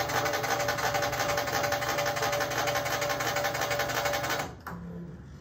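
The surface grinder's motor-driven table axis travels under joystick control with a steady whine and a rapid mechanical buzz, then stops about four and a half seconds in, leaving a quieter hum.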